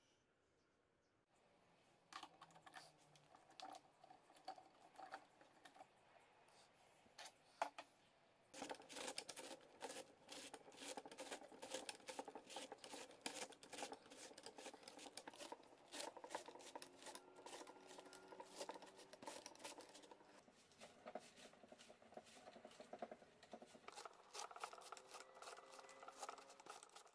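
Cabbage being sliced on a homemade blade-and-rod shredder: quiet, crisp cutting and scraping. Sparse clicks at first, then a fast, steady run of them from about a third of the way in until it stops suddenly at the end.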